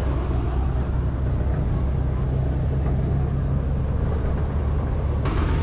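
Engine of a rice threshing machine running steadily with a low, even hum.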